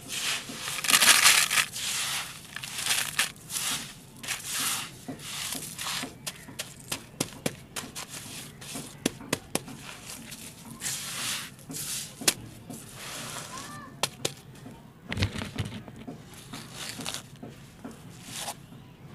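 Small gravel chips being scooped by hand and packed into a plastic tub: gritty crunching and rattling scrapes, with sharp clicks of stones against the tub. A dull thump comes about fifteen seconds in.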